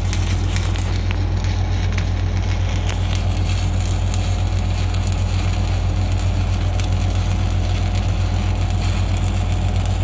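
Stick-welding arc crackling steadily as an electrode burns on steel, a dense run of tiny pops and sizzle with no break, over a steady low hum.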